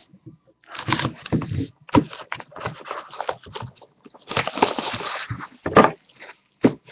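Plastic shrink wrap crinkling and tearing as it is stripped off a trading-card hobby box, in uneven bursts, with a few sharp knocks of the cardboard boxes against the table.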